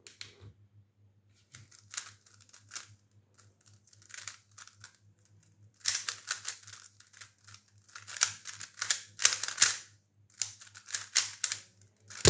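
Plastic 3x3 speedcube, a DaYan GuHong V4M, being turned rapidly during a timed solve: quick runs of clicking and clacking as the layers snap round, sparse at first and fast and loud from about halfway. It ends in a sharp smack as the hands come down on the stackmat timer.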